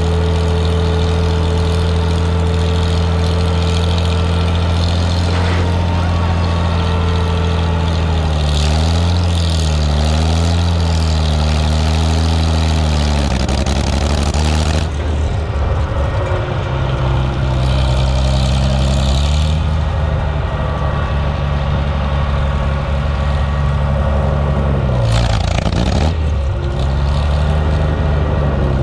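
Older farm tractor's engine running while driving along, heard from the seat just behind its upright exhaust stack. Its engine speed rises and falls a few times, around a third of the way in and again near the end.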